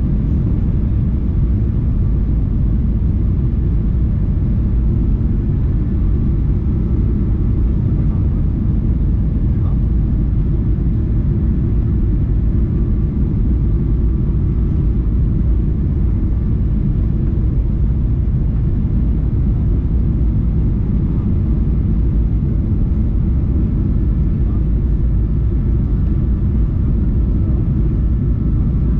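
Cabin noise of a Boeing 737-800 on final approach: a steady low rumble of the CFM56 engines and airflow, with faint steady whining tones above it.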